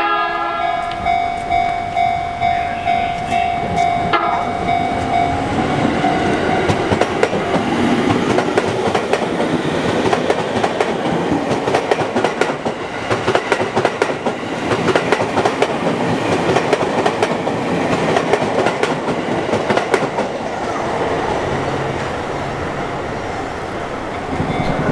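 Sotetsu Line electric train passing over a level crossing, its wheels clattering over the rail joints. A crossing bell rings about twice a second in the first few seconds before the train's passing noise covers it.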